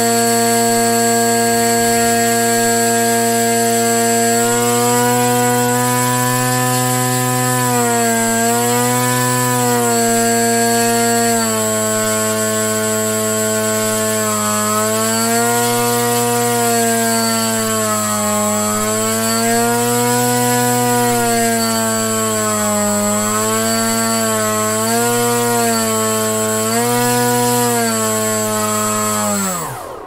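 Parrot Disco's brushless motor driving its stock two-blade 8-inch propeller at cruise current: a loud buzz, held steady at about 4 amps, then rising and falling in pitch as the throttle is varied between 3 and 5 amps. Near the end it winds down quickly and stops.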